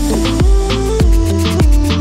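Electronic background music with a steady drum beat, about one hit every 0.6 seconds, over bass and synth notes.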